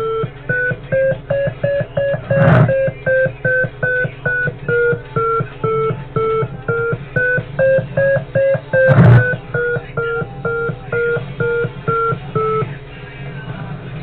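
A steady series of short electronic beeps, about three a second, drifting slowly up and then down in pitch and stopping near the end. Two loud crackles cut in about 2.5 s and 9 s in.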